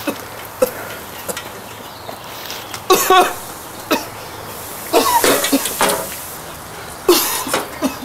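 A man coughing in repeated fits, a couple of seconds apart, choking on thick barbecue smoke.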